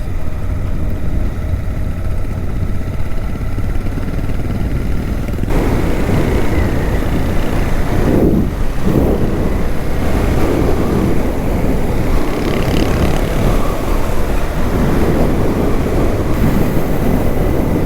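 Suzuki V-Strom 800DE's parallel-twin engine running on the move, with wind rushing over the microphone that grows much louder about five and a half seconds in.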